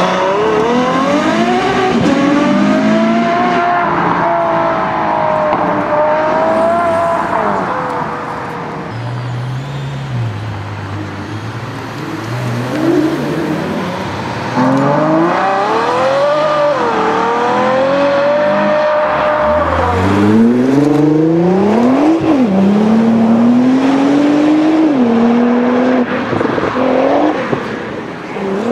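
Ferrari F12berlinetta's V12 accelerating away hard, its pitch rising and dropping back several times as it changes up through the gears. About halfway through, a Ferrari FF's V12 pulls away the same way, suddenly louder, with more rising revs and gear changes.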